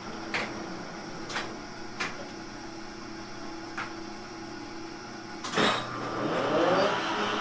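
1961 Regal LeBlanc engine lathe's drive humming steadily with a few sharp clicks. About five and a half seconds in there is a clunk, then the spindle with its heavy chuck speeds up: a rising whine and louder running.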